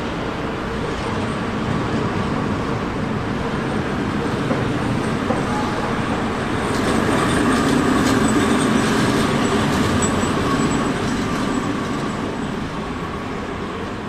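Rhaetian Railway Ge 3/3 shunting locomotive rolling past on the station tracks: a steady rumble of wheels on rail that swells to its loudest about eight seconds in, with a thin high wheel squeal as it passes.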